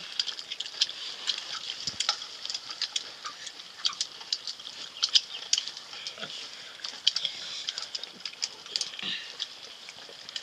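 People eating rice and greens by hand from steel plates: a run of small, irregular clicks and smacks from chewing and from fingers scraping the metal.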